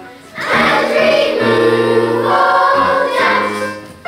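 Children's choir singing a phrase of long held notes, coming in about half a second in and dying away near the end.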